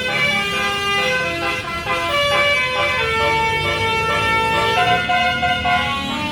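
Basuri multi-tone 'telolet' bus horn playing an old-style melody: a run of held notes stepping up and down in pitch, several sounding together, over the low rumble of the bus engine.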